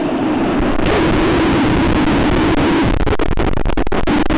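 Wave pool surf wave breaking: a loud, distorted roar of rushing water that swells about a second in and turns choppy and broken from about three seconds in.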